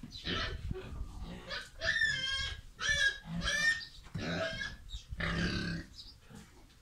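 Black pig calling close up: a string of short grunts and squeals, the highest-pitched squeals a couple of seconds in, then lower grunts.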